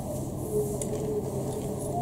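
Rubber-soled work shoes stepping and squeaking on a wet, glossy tile floor, with a short squeak about half a second in, over a steady low hum.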